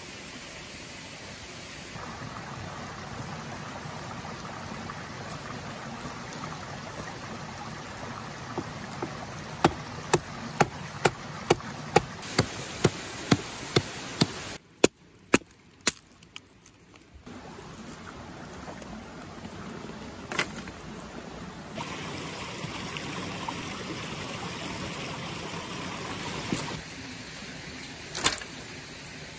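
Mountain stream running steadily. About a third of the way in comes a run of about a dozen sharp knocks, roughly two a second, followed by a short quieter gap, with a louder single knock near the end.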